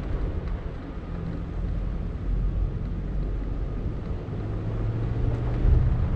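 A vehicle driving on a dirt road, heard from a camera mounted outside on its body. The engine hums steadily under the rumble of tyres on dirt, and wind buffets the microphone. The engine note shifts slightly a little past four seconds in.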